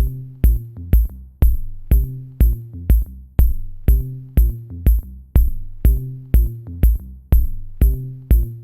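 Electronic dance music: a steady drum-machine kick about two beats a second, each beat with a short high tick, over a synth bass line and held synth notes.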